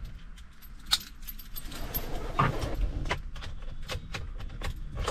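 Light, irregular clicks and taps of something being handled, with a sharper click about a second in and a louder knock about two and a half seconds in.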